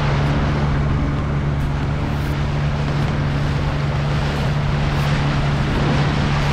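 Small fishing boat's outboard motor running steadily under way, a constant drone with wind and water rushing past.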